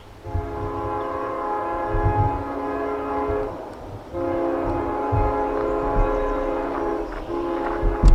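Locomotive air horn sounding a multi-note chord in long blasts, with short breaks about three and a half and seven seconds in, as a train approaches on the other main track; low rumbling underneath and a sharp bang near the end.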